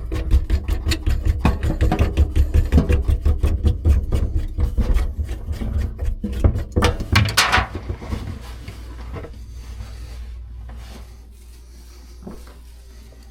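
Rapid repeated scraping strokes, several a second, that stop about eight seconds in.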